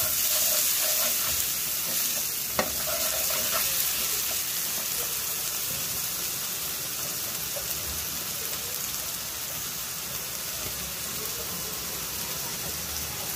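Chopped red onions sizzling in hot oil in a metal pan, with a steel ladle stirring and scraping through them. There is a single sharp knock about two and a half seconds in, and the sizzle eases gradually.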